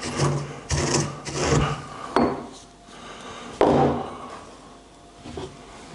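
Coriander seeds being crushed with a pestle in a mortar: several grinding strokes, then a sharp knock about two seconds in and a heavier thud a moment later as the pestle is set down on the wooden worktop.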